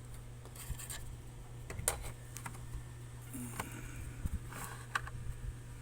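Irregular light clicks and taps from hands working with a laptop, an SSD and its docking station, over a steady low hum.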